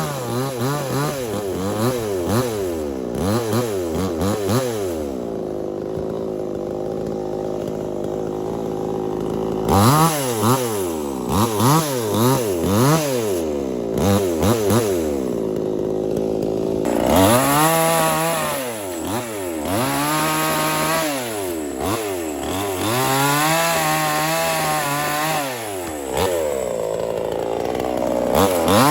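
Small two-stroke chainsaw revving up and dropping back again and again, with a few steadier stretches at high speed, as it cuts through wood.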